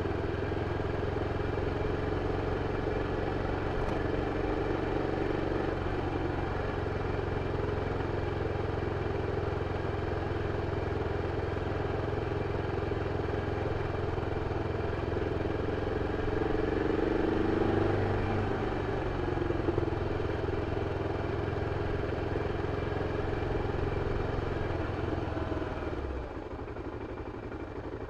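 BMW F 650 CS single-cylinder engine running steadily through its original exhaust. The engine note rises about two-thirds of the way through, then the sound drops off near the end.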